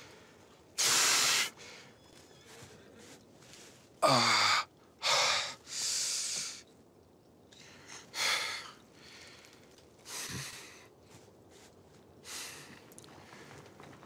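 An elderly man's heavy, labored breathing: a series of about seven gasping breaths, one with a short falling groan about four seconds in, the later ones fainter.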